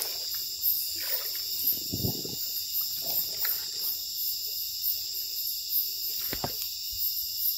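Night insects chirring: a steady high shrill with a higher, pulsing chirp over it. A couple of dull low knocks come about two seconds and six seconds in.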